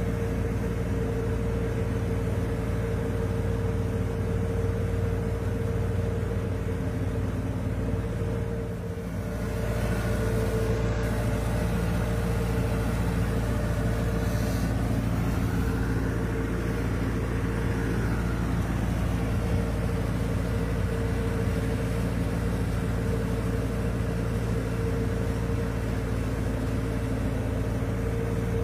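Yanmar YM351A tractor's diesel engine running steadily under load as it pulls a rotary tiller through wet paddy mud, with a brief dip in loudness about nine seconds in.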